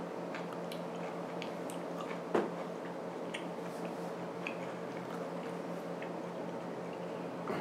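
Soft chewing with small mouth clicks over a steady low hum, and one louder knock about two and a half seconds in.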